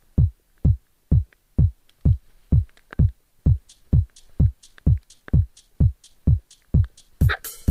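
House music track with a steady four-on-the-floor electronic kick drum, about two deep beats a second, each dropping in pitch. A high tick joins between the beats about halfway through, and the fuller arrangement comes in near the end.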